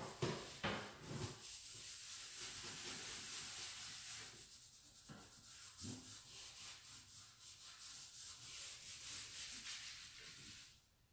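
Cloth rag rubbing over a painted wooden drawer front in repeated back-and-forth strokes, wiping back freshly applied black furniture wax; the rubbing stops shortly before the end.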